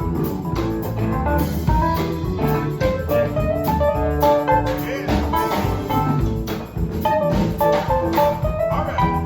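Live blues band playing an instrumental passage: a melodic guitar line over bass and a drum kit keeping a steady beat.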